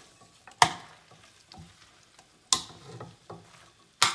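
Shredded cabbage and egg batter scraped from a plastic bowl into a hot oiled frying pan with a metal utensil, which knocks sharply against the bowl and pan three times. A light sizzle of frying runs underneath.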